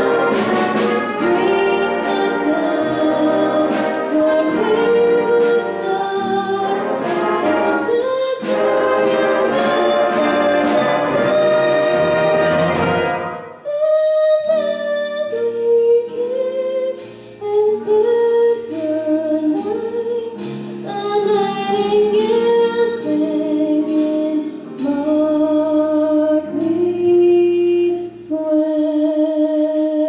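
High school jazz big band with saxophones, trumpets, trombones, piano and drums, a female vocalist singing with them. The full band plays until about halfway, breaks off briefly, then goes on more lightly with held notes and ticking cymbals.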